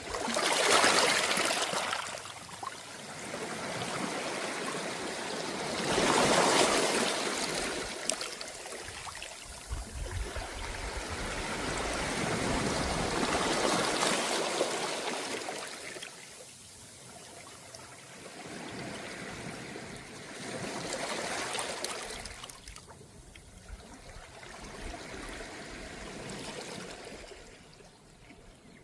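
Calm small waves washing up a beach of round pebbles and draining back through the stones, four gentle surges that swell and fade every six or seven seconds.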